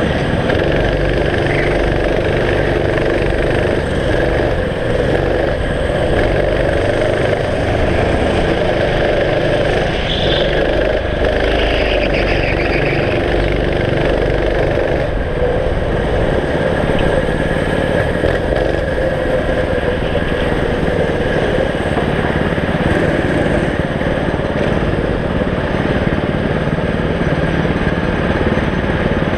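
Racing kart engine running hard, heard from the driver's seat, its pitch rising and falling with the throttle.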